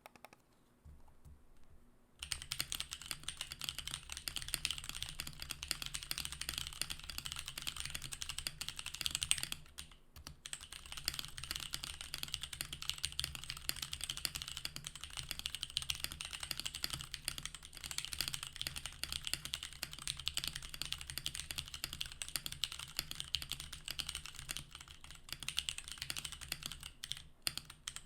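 Portico mechanical keyboard with SP-Star Magic Girl tactile switches, typed on fast and continuously. The typing starts about two seconds in and pauses briefly about a third of the way through.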